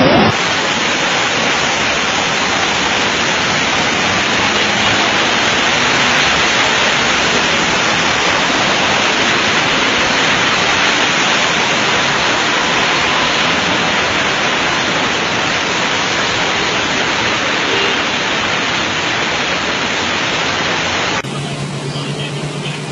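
Floodwater rushing: a loud, steady, even roar. Near the end it cuts to a quieter rush with a steady low hum.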